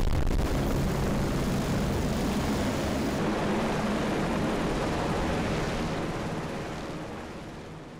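Military helicopters' rotors and turbine engines running close by, a loud steady thrum, fading out over the last couple of seconds.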